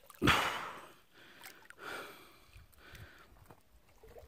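A loud breathy rush of air near the start, fading within about half a second, then faint scattered splashes and sloshing of water close by.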